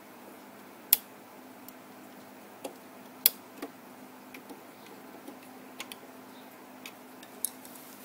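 Refrigerator defrost timer being turned with a screwdriver in its slot: a string of irregular sharp clicks, the loudest about a second in and a little after three seconds in. The timer is being turned to reset a refrigerator that has stopped running.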